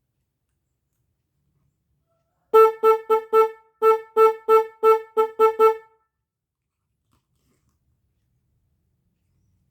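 Original Yamaha YL1/YL2 motorcycle horn sounding about a dozen short, quick beeps of one steady pitch, in a run of four and then a run of about seven, as a function test.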